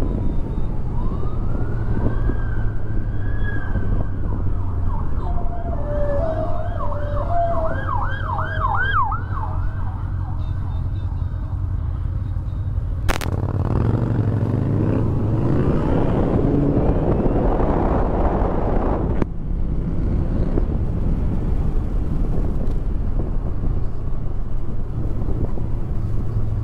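A Honda motorcycle's engine running under way with wind and road rush. An emergency-vehicle siren sounds over it for the first nine seconds or so, with slow wails that switch to a fast yelp about six seconds in. The engine and wind rush grow louder for several seconds in the middle.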